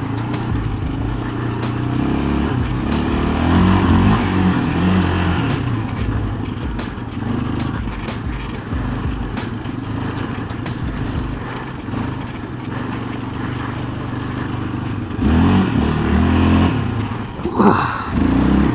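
Sport quad (ATV) engine running under load on a dirt track, its revs surging up and down with the throttle, with a sharp rev rise and fall near the end. Short sharp clicks come through during the first part.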